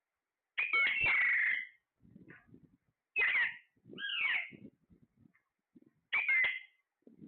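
Parrot calling: four separate calls with sliding pitch, the first and longest about half a second in, then three shorter ones about three, four and six seconds in.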